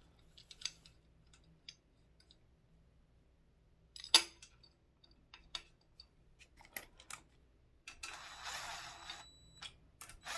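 Scattered metallic clicks and taps as bolts and a drill template are handled against an iron engine block, the loudest about four seconds in. Near the end a cordless drill runs for about a second, driving a template bolt in.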